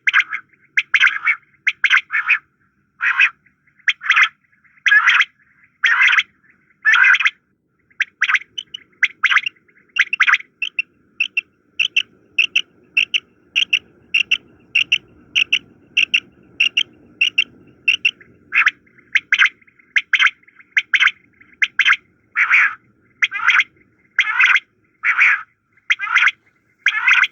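Common quails calling: short, sharp calls repeated about once a second, with a faster run of shorter, higher notes, about three a second, in the middle.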